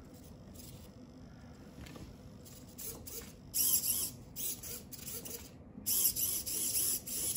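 Small hobby micro servo motors of a joystick-controlled laser turret whirring in short bursts as they swing the laser, about half a dozen bursts from about halfway on.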